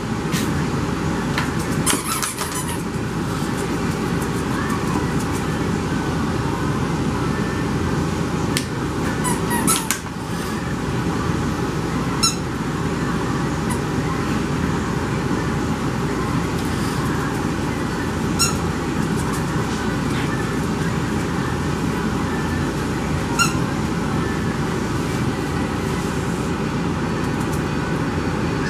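Steady whooshing background noise, like a fan or ventilation running. A few short high squeaks rise above it, about every six seconds in the second half, from the French Bulldog puppies at play.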